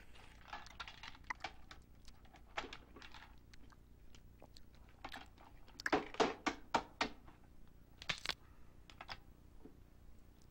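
Cooked shellfish shell being cracked and picked apart by hand: a scatter of sharp cracks and clicks. The loudest is a quick run of about six snaps near the middle, and another crack follows a couple of seconds later.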